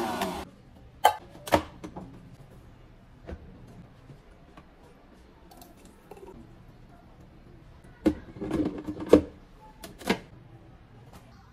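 A Philips countertop blender's motor stops just after the start. Then come sharp clicks and knocks of the plastic blender jug being lifted off its base and later set back on it, in two clusters: one about a second in and one near the end.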